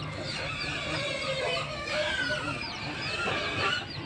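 Chickens clucking, with a quick run of short, high, falling chirps several times a second.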